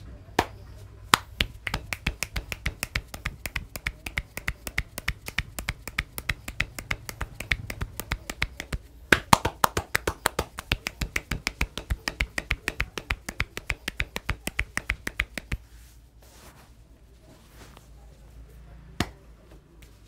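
Rapid rhythmic hand slaps of a traditional Indian barber's massage on the arm and shoulder: sharp pops at about four or five a second, stopping suddenly about fifteen seconds in. One more single sharp pop comes near the end.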